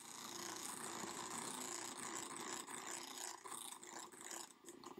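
KitchenAid electric hand mixer running steadily, its beaters whirring through thick almond-flour batter as softened butter is blended in.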